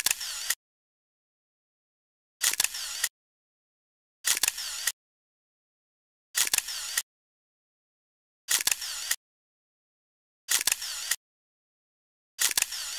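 An iPhone camera's shutter click, seven times about every two seconds. Each click carries a brief moment of outdoor background sound, with dead silence between.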